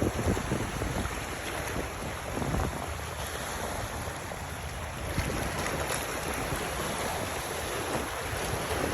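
Wind buffeting the microphone over a steady wash of water and waves, with gusty low rumbles.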